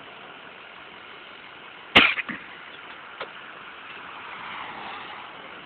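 A single sharp bang about two seconds in, ringing off briefly, then a lighter click about a second later, over a steady background of vehicle engine noise.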